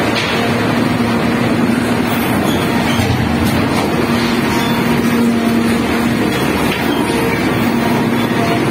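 Heavy diesel machinery running steadily inside a rock tunnel during mucking. A constant, dense engine drone with a low humming tone that comes and goes.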